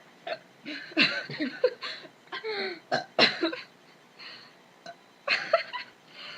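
Giggling: a run of short laughing bursts for the first few seconds, then a few quieter ones, and a last brief burst near the end.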